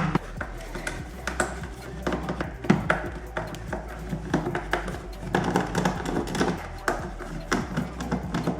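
Irregular light clicks and knocks over a low steady hum.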